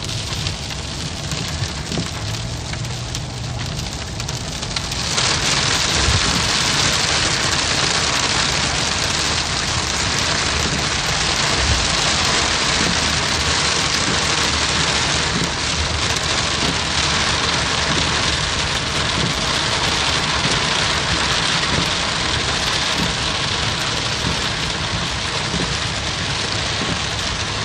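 Heavy rain pouring down in a steady hiss, growing louder about five seconds in, with a low steady hum underneath.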